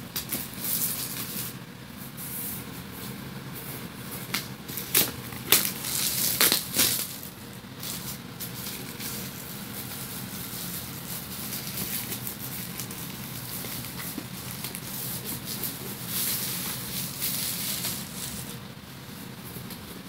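Clear plastic wrap crinkling and crackling as it is pulled off a wooden box, with a dense flurry of loud crackles about five to seven seconds in.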